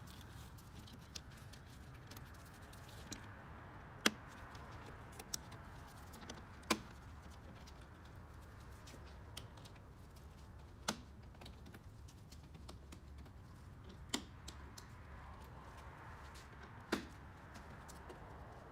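Sharp plastic clicks every few seconds, five louder ones among smaller ticks: the push-pin retainers on top of a 2010 Toyota Camry front bumper being pressed down and pried out one by one with a flathead screwdriver, over a low steady hum.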